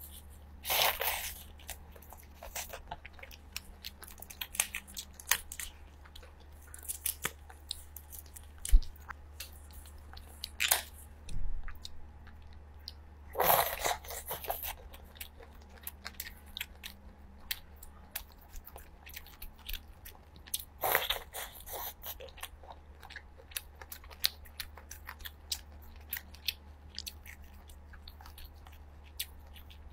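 Chewing and biting into peeled shellfish meat in garlic butter sauce, with many small mouth clicks and a few louder bursts: about a second in, about halfway through, and about two-thirds through.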